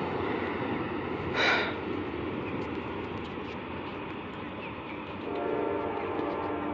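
Amtrak passenger train rumbling steadily as it moves away past the crossing, with a short hiss about a second and a half in. From about five seconds in a train horn sounds, held steady.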